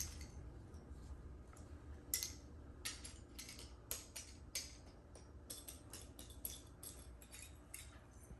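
Small plastic Lego pieces clicking against each other, faint and irregular, about fifteen light clicks over several seconds while the pieces are sorted through.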